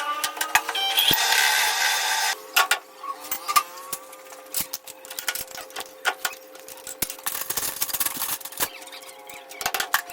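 Workshop tool sounds during rickshaw axle repair: irregular clanks and taps of tools on metal, a short noisy hiss about a second in, then a steady machine hum under the knocks.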